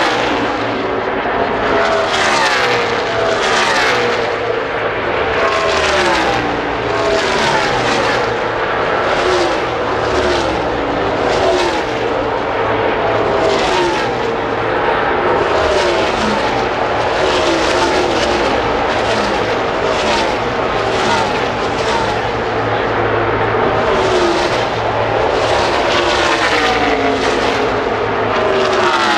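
NASCAR Cup stock cars' V8 engines at full racing speed passing one after another, each pitch falling as a car goes by, about one a second in an unbroken stream.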